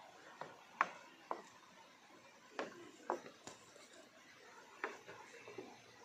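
Footsteps on forest leaf litter: irregular sharp crackles and snaps of dry leaves and twigs underfoot, the loudest about a second in, over a faint steady hiss.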